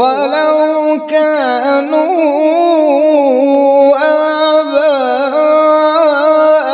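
Male qari reciting the Quran in Arabic in a melodic, chanted style, drawing out long held notes with small ornamented turns between them.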